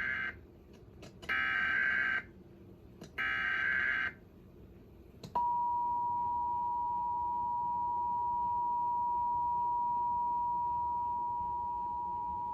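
Emergency Alert System SAME header: the tail of one burst of buzzy data tones, then two more bursts about a second long. About five seconds in, the steady two-tone EAS attention signal starts. This is the opening of a broadcast EAS activation, here a required test.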